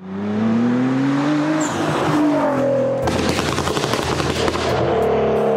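Car engine revving up, its pitch climbing, then a rapid string of exhaust pops and crackles lasting about a second and a half.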